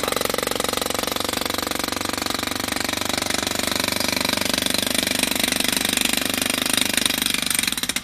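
Corded electric jackhammer breaking up a concrete driveway, hammering steadily with rapid blows, then stopping just before the end.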